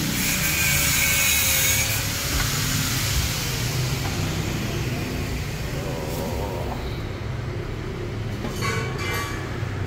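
Steady low rumble with a hiss that fades after about three seconds. Near the end come a few light metallic clinks as a stainless steel exhaust tailpipe tip is handled.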